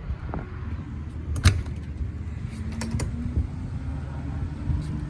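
Travel trailer entry door being opened and stepped through: a few sharp clicks and knocks, the loudest about a second and a half in and more around three seconds. A low steady hum starts partway through.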